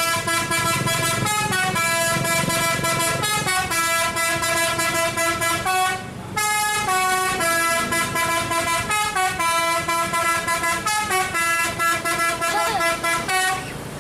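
Basuri telolet multi-tone bus horn on an Isuzu Elf minibus playing a long tune of stepped horn notes. The tune breaks briefly about six seconds in and stops just before the end.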